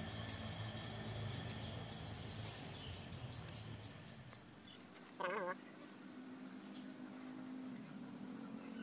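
A single short, wavering call from a farm bird about five seconds in, over faint steady outdoor background noise.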